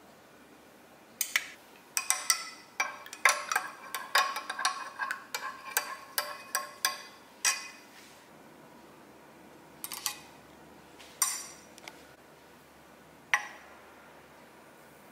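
A metal spoon clinking against a glass measuring jug while stirring sour cream into warm water: a quick, uneven run of clinks for several seconds, then a few separate clinks.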